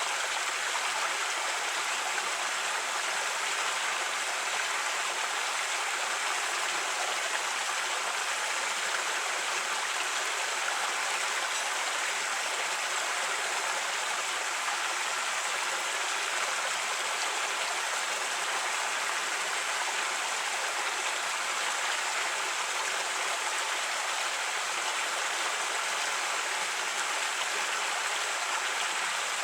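A creek running: steady rushing and splashing of flowing water.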